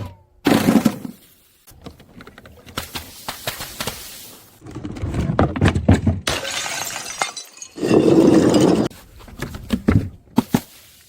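Glass bottles smashing, several separate crashes with crunching and the tinkle of breaking shards between them.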